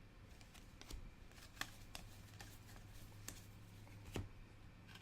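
Soccer trading cards being handled and flipped through by hand: a few faint, short clicks and slides of card stock, the clearest about four seconds in.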